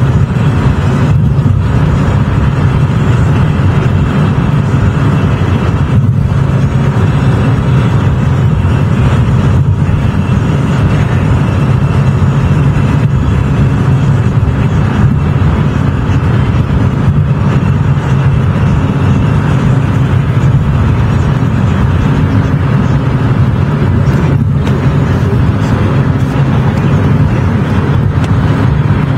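Car driving at steady speed: constant engine and road noise with no change in pitch or level.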